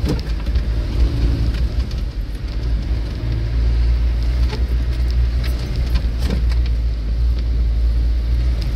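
Range Rover Classic driving slowly over a rutted muddy off-road track, heard from inside the cabin: a steady low engine and drivetrain rumble, with a few short knocks as the body jolts over the ruts.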